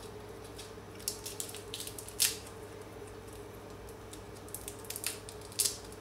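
Roasted chestnut shell crackling and snapping as fingers peel it off the nut: a few scattered short, crisp cracks, the loudest a little over two seconds in and a small cluster near the end, over a faint steady hum.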